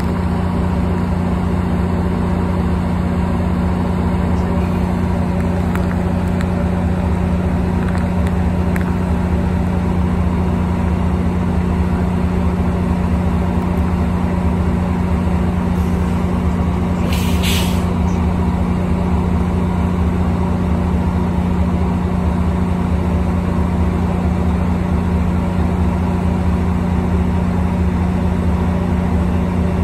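MARC 7700-series passenger coaches rolling past on the rails with a steady rumble, over a constant low drone of diesel locomotive engine. A brief hiss about halfway through.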